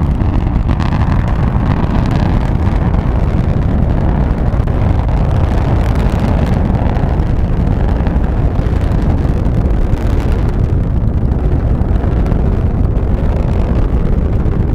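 Delta IV rocket's RS-68 main engine and strap-on solid rocket motors in ascent, a loud, steady deep rumble heard from about a mile and a half away.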